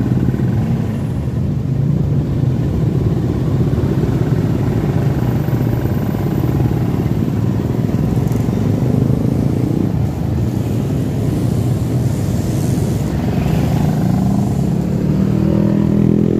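Scooter and motorcycle engines running at low speed in slow, dense motorcycle traffic, with the rider's own Honda Beat scooter's small single-cylinder engine among them. Near the end an engine's pitch rises as it speeds up.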